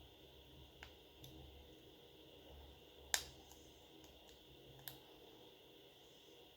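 Four short, sharp clicks of smartphone parts being handled and fitted, the loudest about three seconds in.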